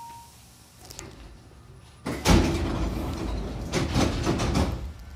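Hankyu train's double-leaf sliding passenger doors opening at a station stop: a sudden loud rush of noise starts about two seconds in, with a few knocks as the leaves slide apart, and dies away near the end.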